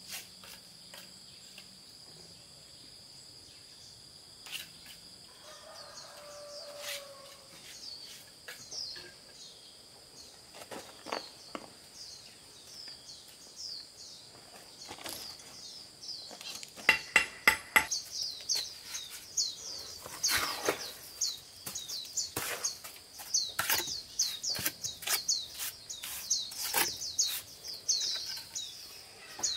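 Sharp knocks and scrapes of a trowel on concrete blocks being laid in mortar, with a loud run of knocks about two-thirds of the way in. Behind them a bird sings short repeated chirps, which get busier in the second half, over a steady high insect drone.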